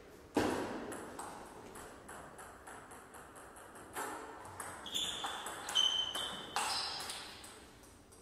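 Celluloid-style table tennis ball clicking sharply off paddles and a Donic table during a rally, at times several clicks in quick succession. A few short high squeaks in the middle of the rally, typical of shoes on the hall floor.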